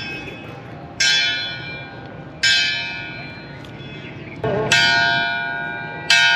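Railway station intimation bell struck four times, each stroke ringing out and slowly fading. It signals that trains are approaching the station.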